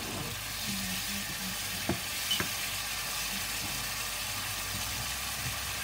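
Tomato-and-onion curry masala sizzling in a frying pan over a high flame while a wooden spoon stirs it, the masala being fried (bhuna) with a little water added. Two sharp knocks, the spoon against the pan, about two seconds in.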